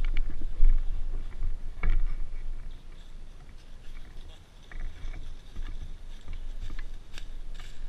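Low rumble on the microphone with scattered soft clicks and rustles, the sharpest click about two seconds in and a few more near the end.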